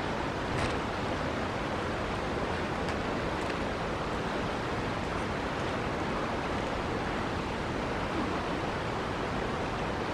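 Steady rushing of a river running high after heavy rain, with a few faint clicks.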